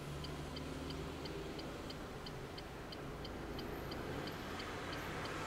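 Turn-signal indicator ticking in a Renault's cabin at about three ticks a second, stopping shortly before the end, over the low hum of the engine and road. This is the indicator left on for a lane change.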